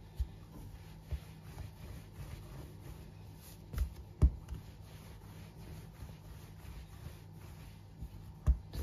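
Hands rubbing and rolling soft dough on a granite countertop, with a few dull knocks on the counter, the loudest about four seconds in. A faint steady hum underneath.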